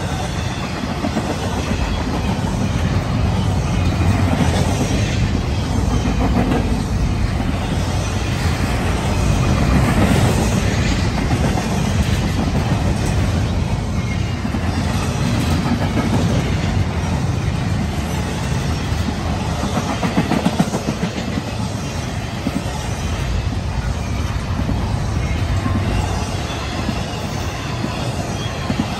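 Freight cars of a long Norfolk Southern train rolling past at speed: steel wheels on the rails making a steady, loud noise that swells slightly about a third of the way in.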